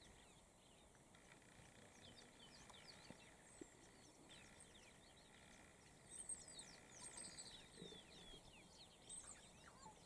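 Faint wild bird calls: many short, quick falling chirps, busiest from about six to nine seconds in, over an otherwise near-silent background.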